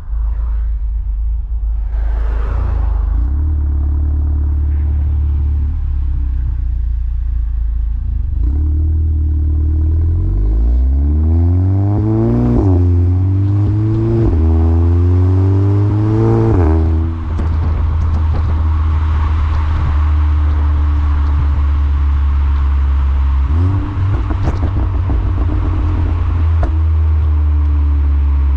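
Volkswagen Golf 7 GTI Performance's 2.0-litre turbocharged four-cylinder with a CTS Turbo exhaust, accelerating with the engine note climbing in pulls that drop suddenly at the gear changes, then settling to a steady cruising drone. Faint scattered crackles come through the exhaust.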